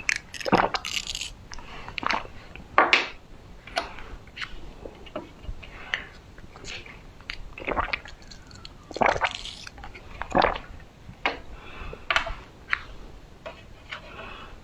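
Close-miked mouth sounds of drinking: irregular wet sips, gulps and swallows with sharp clicks, one or two a second.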